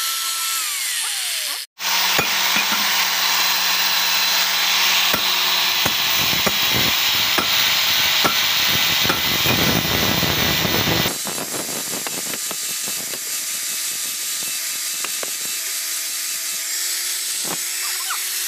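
Electric angle grinder with an abrasive disc grinding a steel blade, a loud, dense grinding noise with sparks flying. The sound breaks off for an instant about two seconds in. About eleven seconds in it drops suddenly to a quieter steady whine with scattered ticks.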